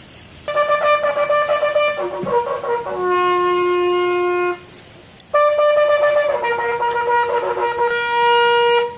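Bugle call sounded for a guard-of-honour salute: two phrases of several notes, each ending on a long held note, with a short break about halfway.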